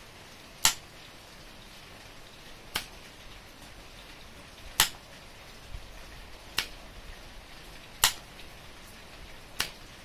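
Magnetic contactor and 12 V relay clicking in and out as a float switch is tipped up and down: six sharp clicks about every one and a half to two seconds, alternating louder and softer, as the load switches on and off.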